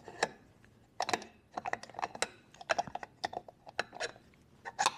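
Metal magneto parts clicking and knocking together as the oiled rotor shaft is pushed through the John Deere Model E magneto housing and the housing is handled on the bench. An irregular run of light clicks and knocks, the loudest about a second in and near the end.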